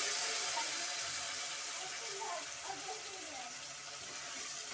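Chopped onion, tomato and potato sizzling in hot oil in an aluminium pressure cooker while a steel ladle stirs them: a steady frying hiss.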